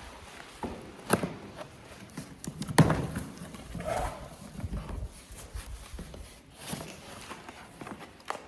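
Scattered, irregular knocks and rustles from a boxed bathroom exhaust fan and its parts being unpacked and handled, with the loudest knock about three seconds in.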